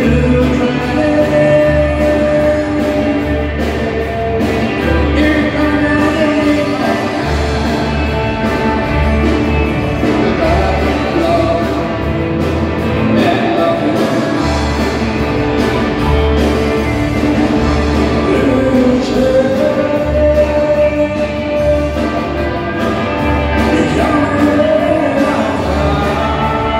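Live country dance band playing a song: a singer over acoustic and electric guitars, bass guitar and drums, with a steady pulsing bass line.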